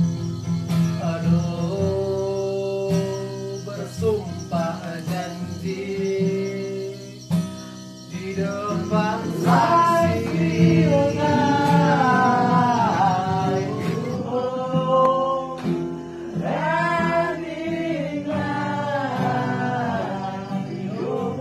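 Acoustic guitar being strummed, with voices singing a song along with it from about nine seconds in.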